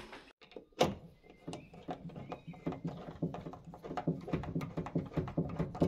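Hand screwdriver driving a screw into a wall plug through the back of a kitchen base cabinet. There is one knock about a second in, then a steady run of small clicks, several a second, as the screwdriver is turned.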